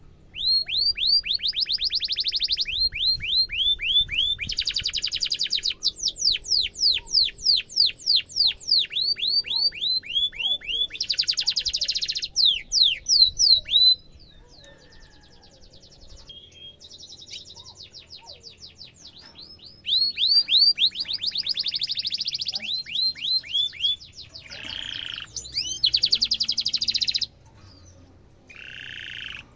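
Domestic canary singing a long song of fast, repeated downward-sweeping chirps and rolling trills. It sings in two long bouts with a pause of several seconds between them, then a short phrase near the end.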